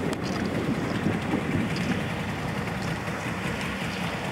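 Steady low rumble of a boat's engine running, with wind buffeting the microphone.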